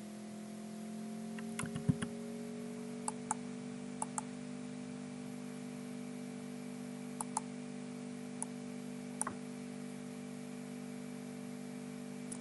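Computer mouse clicks, several times and mostly in quick pairs, over a steady hum of several tones that rises slightly in pitch during the first few seconds.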